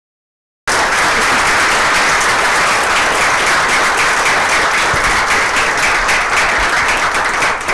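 Audience applauding. The clapping starts abruptly less than a second in and keeps an even, dense level throughout.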